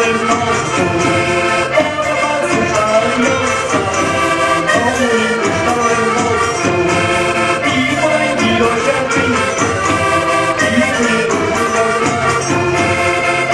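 Live Portuguese folk music: accordion and strummed guitars over a hand drum keeping a steady beat, with voices singing.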